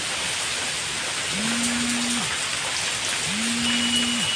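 Heavy rain falling steadily, an even hiss. Through it, a low flat tone sounds twice, each lasting about a second and spaced about two seconds apart.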